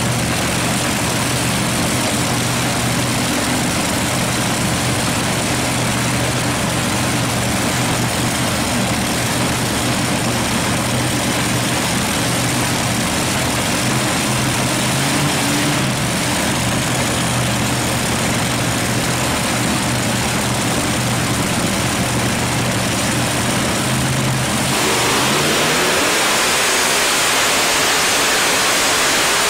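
Multi-engine modified pulling tractor's engines idling with a steady rumble. About 25 seconds in, the sound turns into a louder hissing rush with a pitch rising underneath as the engines are revved up.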